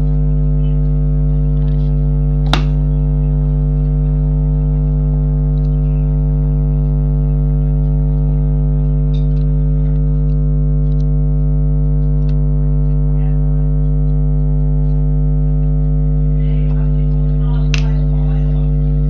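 Steady, loud hum with many evenly spaced overtones, broken by a sharp click about two and a half seconds in and another near the end.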